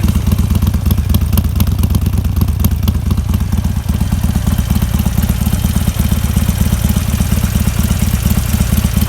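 Harley-Davidson Iron 883's V-twin idling through a Penzl aftermarket exhaust with its manual flap valve closed: a steady, pulsing low rumble.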